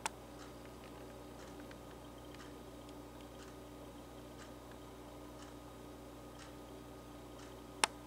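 Faint regular ticking, about once a second, over a low steady hum, with a sharp louder click right at the start and another just before the end.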